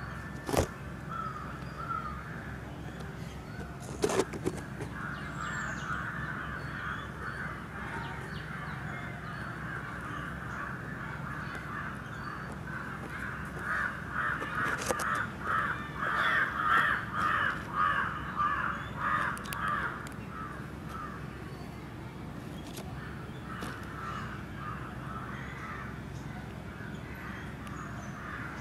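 Outdoor animal calls, likely birds: a steady run of rapidly repeated calls, several a second, loudest about halfway through. Two sharp knocks come in the first few seconds.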